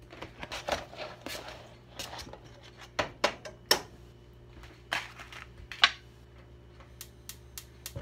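Sliced sausage going into a cold nonstick frying pan: rustling with several sharp knocks and clatters. Near the end, a gas stove's igniter clicks a few times, about three a second, as the burner is lit.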